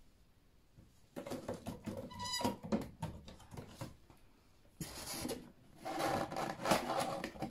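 Handling noises as a box is moved and opened: rustling and scraping from about a second in, with a short, high squeak a little after two seconds and a louder stretch of rustling near the end.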